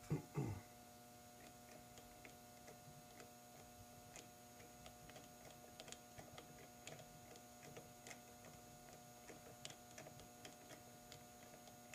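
Faint, irregular light clicks of small metal parts being handled, the clutch's washer stack and screw being set on the shaft, over a steady low hum.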